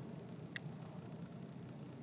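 Quiet room tone: a steady low hum with faint hiss, and a single short click about half a second in.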